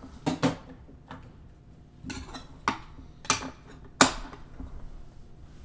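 A series of sharp clicks and knocks, about half a dozen, from hands handling trading cards in hard plastic magnetic holders in a box.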